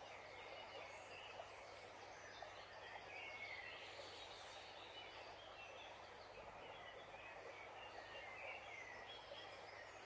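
Faint, steady rush of stream water, with small birds chirping softly now and then throughout.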